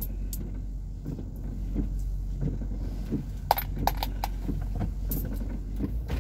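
Toyota Camry SE engine idling, a steady low hum heard from inside the car, with soft low thumps through it and a quick run of light sharp clicks about three and a half to four seconds in.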